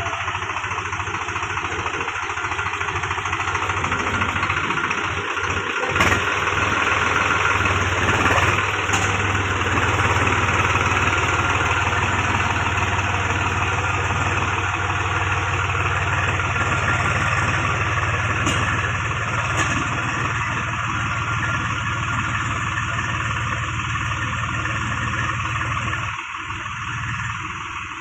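Swaraj 735 FE tractor's diesel engine running steadily under load while it pulls a trailer through deep mud. It grows louder a few seconds in and eases off near the end.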